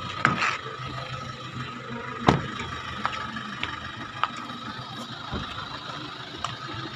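The rear door of a Toyota Hilux Vigo double cab is shut with one loud thud about two seconds in, after a couple of clicks from the handle and latch. A steady hum runs underneath, with a few faint ticks later on.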